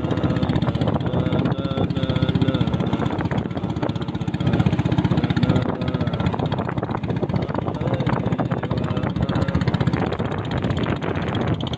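Engine of a small open fishing boat running steadily under way at speed, a fast, even chugging pulse.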